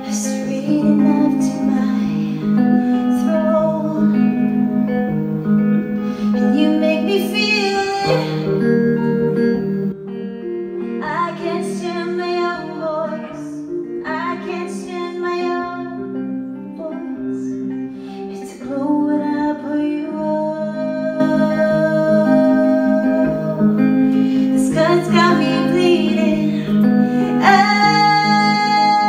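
Live song: a woman singing over clean electric guitar, held notes ringing with some short pauses in the middle.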